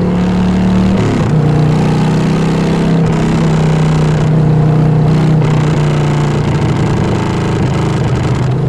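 Harley-Davidson Fat Bob 114's Milwaukee-Eight V-twin running under way through a Vance & Hines full exhaust system. The engine note is steady and drops in pitch about a second in, then again near the end.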